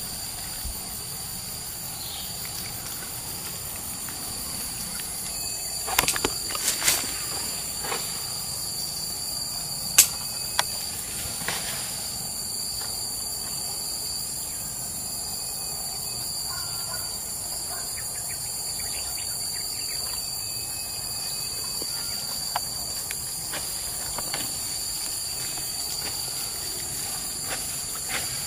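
Steady high-pitched drone of a forest insect chorus, several continuous tones layered together. A few sharp clicks or snaps break in between about six and twelve seconds in, the loudest about ten seconds in.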